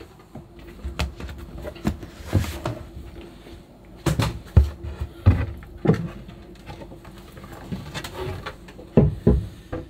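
Irregular wooden knocks and thumps as a cabin floor panel is lifted off a bilge storage locker.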